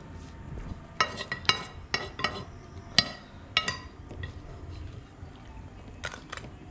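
Metal utensils striking a metal surface with sharp ringing clinks, about ten strikes at an irregular pace, bunched in the first half and two more near the end.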